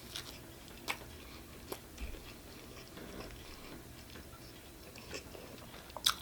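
Quiet chewing of pizza: soft mouth clicks and smacks, with a sharper click about a second in and another near the end.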